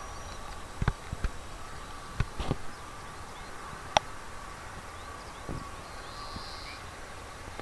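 Faint, steady whine of a distant Airbus A320's IAE V2500 turbofans as it flies away, under outdoor hiss. A few knocks from the camera being handled, and one sharp click about four seconds in.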